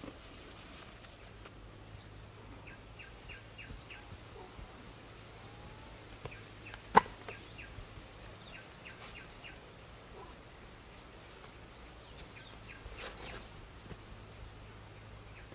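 Outdoor ambience with faint high chirping calls in short rapid series every few seconds, and one sharp click about seven seconds in.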